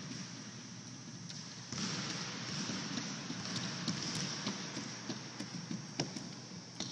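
Small children running on a hardwood gym floor, their footsteps patting in the large hall, louder from about two seconds in. There is a sharp knock about six seconds in.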